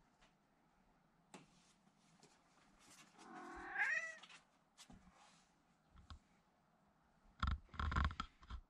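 A cat meows once, a drawn-out call rising in pitch about three seconds in. Near the end come a few short rustling knocks.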